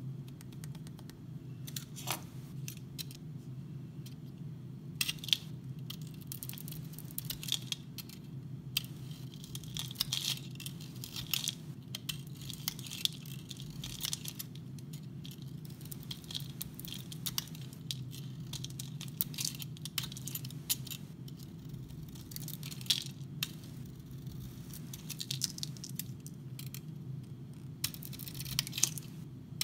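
Snap-off utility knife blade carving a varnish-coated bar of dry soap: irregular crisp scraping and crackling strokes as shavings come off, over a steady low hum.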